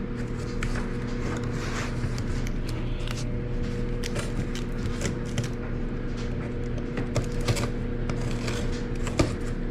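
Cardboard shipping box being worked open by hand without a blade: scattered scrapes, clicks and rustles of cardboard and tape, over a steady low hum.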